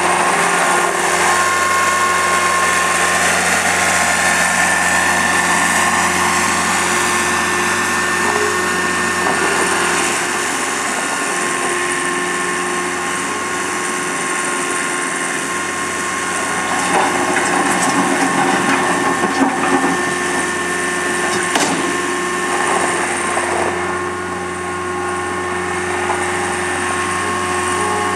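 Caterpillar 226 skid steer's diesel engine running steadily, with a steady high whine over it. A few sharp knocks come in the second half as the machine is worked.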